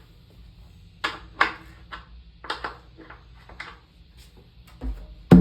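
Light, irregular taps and clicks on a rum atabaque while its goat-skin head is being slackened a little, detuning the drum. Near the end comes the first full hand strike on the head, with a deep ringing tone.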